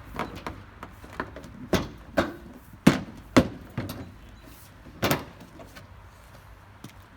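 Quick-release bumper latches being worked and the bumper handled: a series of sharp clicks and knocks, the loudest about three seconds in.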